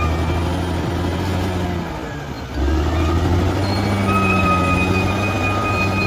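Bulldozer's diesel engine running under load. It dips briefly about two seconds in, then picks back up, with a high steady whine over it that comes and goes.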